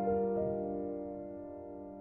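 Soft background piano music: a few sustained notes sounding and slowly fading.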